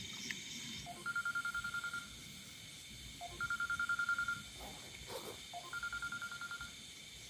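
An animal calling three times in rapid pulsed trills, each about a second long, over a steady high-pitched chorus of night insects.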